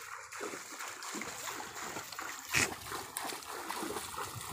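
Water splashing and sloshing as people wade through a shallow river, with one sharper, louder splash a little past halfway.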